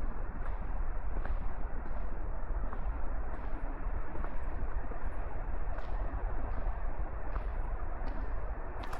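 Steady hiss of light rain with a low rumble underneath, and footsteps on a wet path ticking at walking pace, roughly twice a second.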